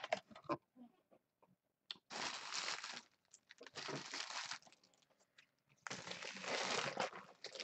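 Card-pack packaging crinkling and rustling as it is handled, in three bursts of about a second each.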